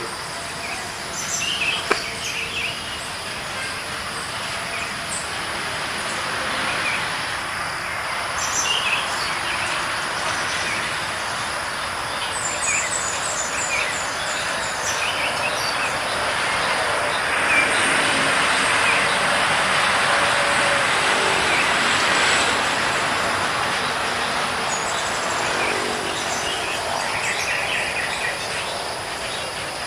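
A broad rushing noise, like a vehicle passing at a distance, swells to its loudest in the middle and eases off again. Short bird chirps come and go over it, among them a quick run of high notes, with a steady high whine underneath.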